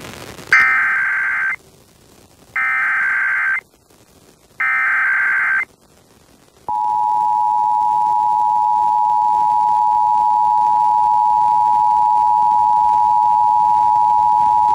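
Emergency Alert System header: three one-second bursts of SAME digital data tones, a second apart. About seven seconds in, the steady two-tone attention signal starts, marking the start of an EAS Required Monthly Test.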